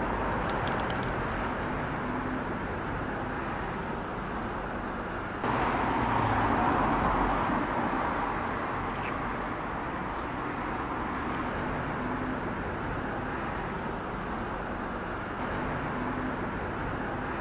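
Steady roadside traffic noise, a continuous hum of passing vehicles, stepping suddenly louder about five seconds in.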